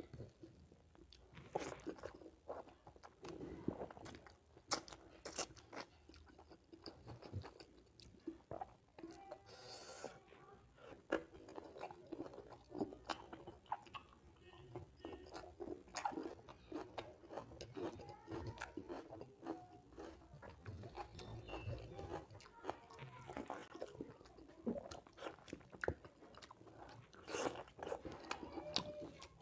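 Close-miked chewing and mouth sounds of a person eating pork curry and rice, with fingers mixing rice on the plate: many short clicks and smacks throughout.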